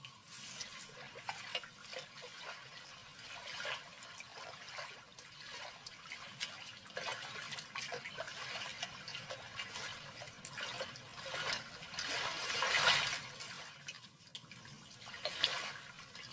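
Lionesses wading through shallow river water: irregular splashing and sloshing of water around their legs, swelling to its loudest about two-thirds of the way through.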